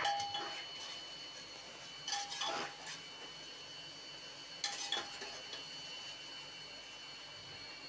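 Perforated steel spatula clinking and scraping against the inside of an aluminium pressure cooker as onions frying in oil are stirred, in three short bursts: at the start, about two seconds in, and about five seconds in.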